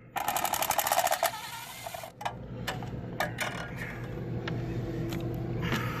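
Cordless driver running in a burst of about a second with a fast, even rattle, then tailing off, as it backs out the screw holding the air conditioner's capacitor bracket. Light clicks and knocks of the loosened sheet-metal bracket follow.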